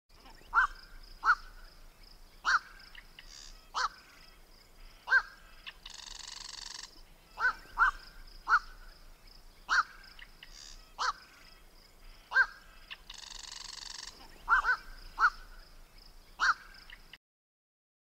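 Black-crowned night heron calling: about fifteen short, harsh "quok" calls, roughly one a second and some in quick pairs. A brief hiss comes twice, about six and thirteen seconds in.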